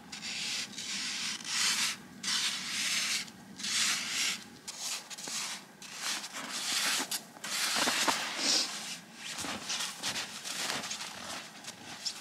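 Repeated rasping, crunching strokes in dry, cold snow, roughly one a second.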